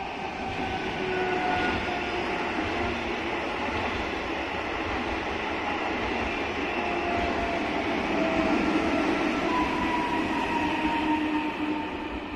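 PKP Intercity ED161 Dart electric multiple unit rolling past, a steady rumble of wheels on rail with faint electric whines that slowly fall in pitch as it slows into the station.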